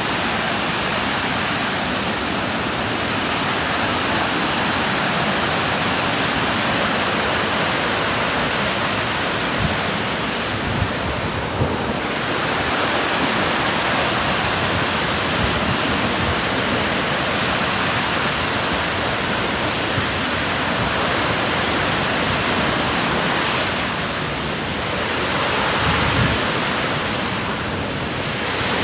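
Burney Falls waterfall pouring, a steady rush of falling water, with a few brief low bumps.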